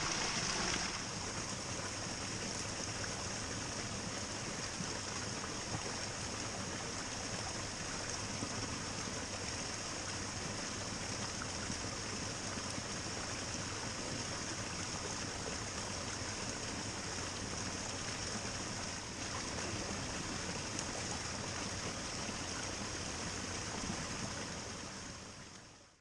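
Steady outdoor ambient noise: an even rushing hiss with a constant high-pitched band running through it, fading out near the end.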